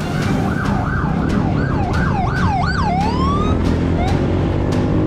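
Police siren in fast yelp cycles, about three rises and falls a second, breaking off after about three seconds. Underneath it is a steady low rumble of motorcycle engine and wind noise.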